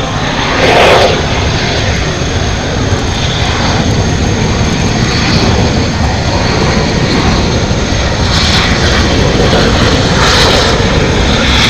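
Jet engines of Kawasaki T-4 jet trainers running on the ground as the aircraft taxi: a loud, continuous rushing noise, with a brief louder burst about a second in and further swells later on.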